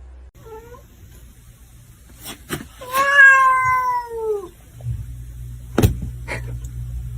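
Domestic cat meowing: a short call about half a second in, then one long drawn-out meow of about a second and a half that slides down in pitch. A few sharp knocks come before and after the long meow.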